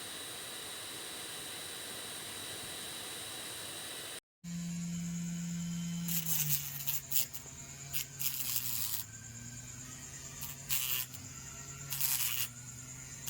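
Small homemade DC-motor grinder. It first gives a steady high whir and hiss, then after a brief break the motor hums lower and drops a little in pitch as the disc bites. Several harsh grinding bursts follow, each up to about a second long.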